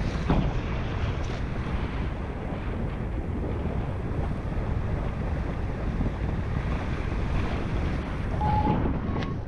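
Airflow rushing over the microphone of a paraglider pilot's onboard camera during the final low glide to landing: a steady wind rush. Two short electronic beeps, the second a little higher, come near the end.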